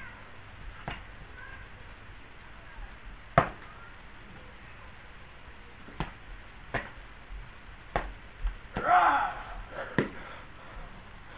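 Padded LARP weapons striking one another in a sparring bout: about eight sharp thwacks at irregular intervals, the loudest about three and a half seconds in. A brief voice sound comes about nine seconds in.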